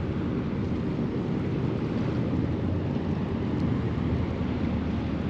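Wind buffeting the microphone over a choppy sea around a small boat, a steady low rush with no distinct slaps or tones.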